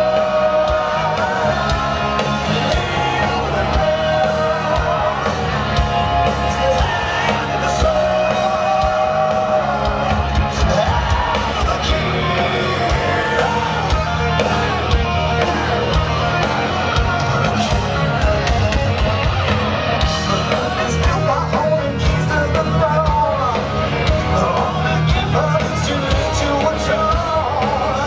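Heavy metal band playing live and loud, with singing over the band.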